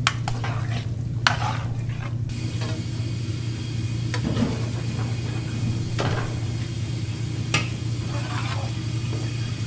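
Dishes and cutlery clinking a few times over a steady low hum.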